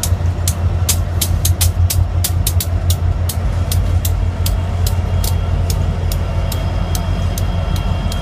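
Union Pacific diesel-electric freight locomotives (EMD SD70AH, GE AC44CW and EMD SD70M) passing close by: a steady low engine rumble with frequent sharp clicks from the wheels on the rails.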